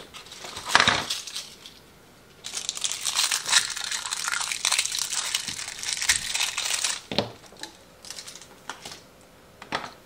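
Rummaging for AA batteries and getting them out of crinkly packaging: a knock about a second in, then several seconds of crinkling, rustling plastic with small clicks, and a couple of sharp clicks near the end.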